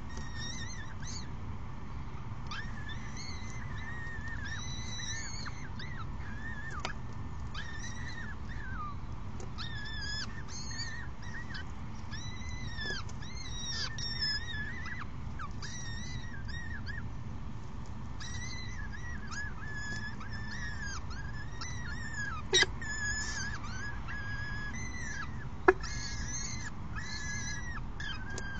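Peregrine falcon chicks cheeping in the nest: a long run of short, high, arched calls, one every half second to a second, over a steady low city rumble. Two sharp clicks stand out near the end.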